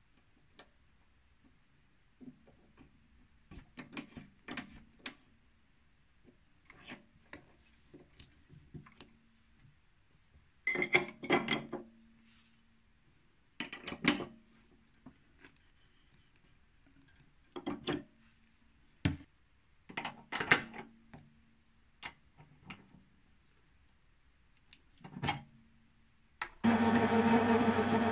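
Scattered metal clicks and clinks as a square brass bar is fitted into an ER collet chuck and the collet nut is tightened with a C-spanner, with louder bursts of clatter a few times. Near the end the Sieg C3 mini lathe starts up abruptly and runs with a steady hum.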